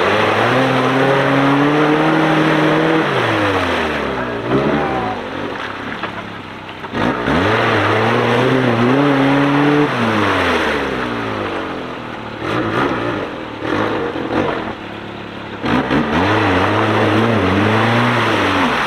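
Small Suzuki SJ-type 4x4's engine revving hard in three long pulls, each rising, holding and then dropping away, as it churns through deep mud and water with the wheels spinning and splashing.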